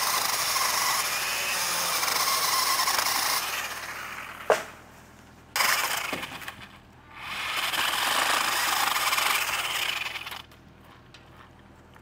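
Battery-powered pole saw chain cutting through tree limbs in three runs: one of about three and a half seconds, a short one near the middle, and one of about three seconds near the end. A single sharp crack comes about four and a half seconds in, between the first two runs.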